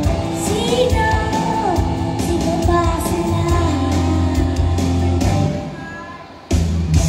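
A boy singing into a microphone over an amplified backing track through a PA sound system. The music fades down in the second half, then cuts back in abruptly near the end.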